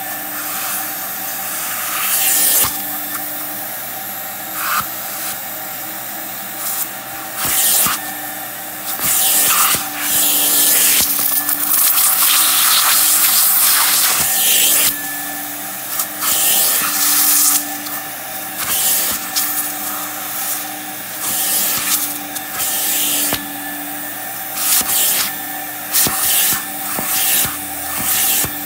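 Hot-water carpet extractor running with a steady motor whine, its clear upholstery tool sprayed and pulled across a fabric couch cushion in repeated passes, each a loud rush of suction hiss.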